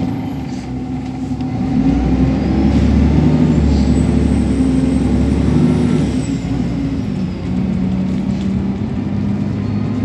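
Alexander Dennis Enviro300 single-deck bus heard from inside the saloon while driving, its diesel engine pulling harder from about two seconds in. A faint high whine rises with it and falls away around six seconds in: the vacuum-cleaner-like 'hoover' sound.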